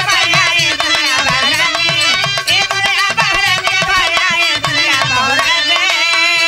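Dholak hand drum and harmonium playing a folk accompaniment, with a man's voice singing a wavering melody over the regular drum strokes.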